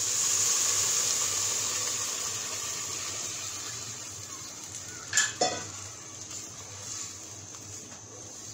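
Chicken stock poured into a hot pan of fried vegetables, hissing and sizzling, loudest at first and slowly dying down. About five seconds in come two sharp knocks, then a spatula stirring the soup.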